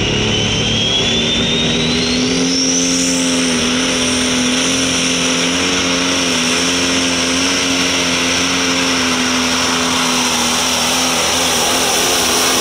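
Pro Stock pulling tractor's turbocharged diesel engine running steadily, with a turbocharger whine that climbs steeply in pitch over the first three seconds and then holds high.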